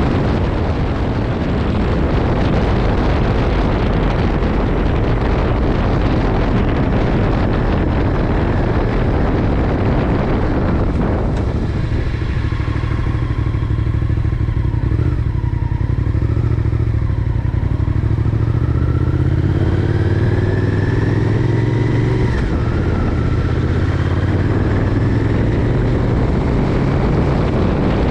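Honda VTR1000F's V-twin engine running while under way, with heavy wind noise on the microphone. About eleven seconds in, the wind noise drops away and the engine's pitch rises and then drops several times, as with accelerating and shifting gears.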